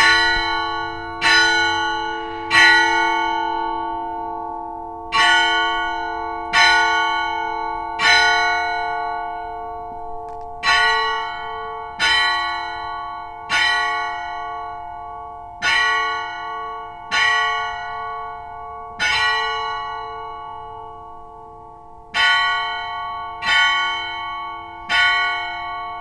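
The two church bells of Hrísey church ringing together, struck in groups of three strokes about a second and a half apart, with a pause of a few seconds between groups. The bells hum on between strokes, so each new stroke sounds over the ringing of the last.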